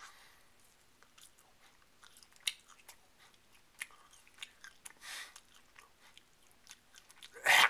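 A man chewing a bite of a tofu snack: quiet mouth clicks and small crunches, scattered and irregular. Near the end comes one loud, breathy outburst, the loudest sound here.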